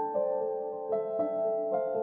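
Background music: a slow melody of held notes, each new note starting every half second to second.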